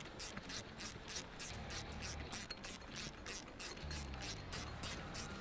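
Socket ratchet clicking steadily, about five clicks a second, as it runs down the bolts holding the lid on a hydraulic return filter canister.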